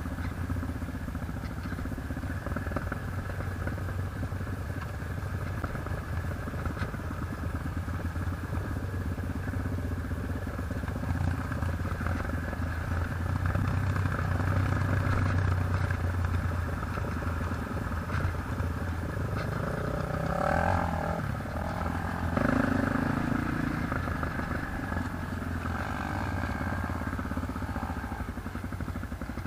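ATV engine running steadily under way with some rattle, getting louder for a few seconds in the middle and briefly rising in pitch about twenty seconds in.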